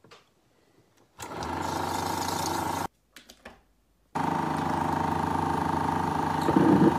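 Chinon sound film projector motor starting and running steadily with a constant hum and a high steady tone. It cuts out abruptly about three seconds in, a few light clicks follow, and then it runs again.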